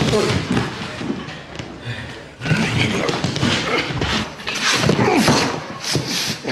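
Two men grappling hand to hand: irregular thuds and scuffling of bodies and feet on the floor, mixed with grunts and strained voices.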